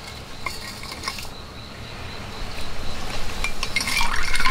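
Ice and water poured from a stainless steel vacuum bottle into a mug: scattered light clinks that build to a louder, denser pour near the end.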